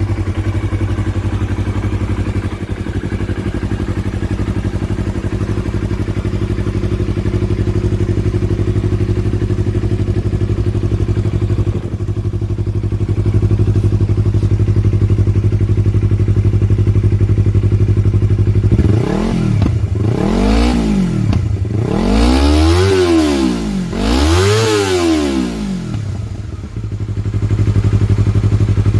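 Yamaha R25 parallel-twin engine through an Akrapovic slip-on exhaust, idling steadily, then revved in four quick throttle blips about two-thirds of the way in, the last two higher, before settling back to idle.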